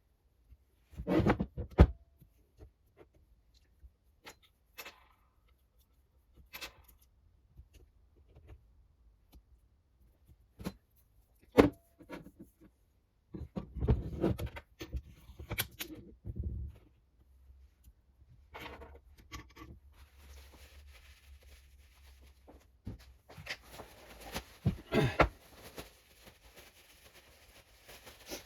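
Scattered clicks, knocks and light clatter of classic Mini rear radius arm parts being handled and fitted during greasing and assembly, with louder clusters about half-way and near the end and a soft rustling hiss through the last third.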